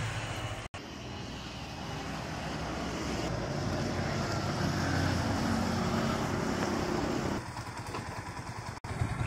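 2019 Yamaha Vixion R's 155 cc single-cylinder engine running as the motorcycle is ridden out on a test ride, its camshaft bearing freshly replaced and running normally. It grows louder as the bike comes closer, then drops away near the end.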